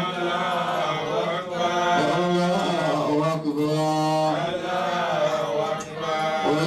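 A man chanting Arabic religious words into a microphone, in long, drawn-out melodic phrases with short breaks between them.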